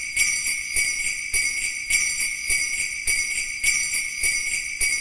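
Jingle bells shaken in an even rhythm, a little under two shakes a second, opening a music track.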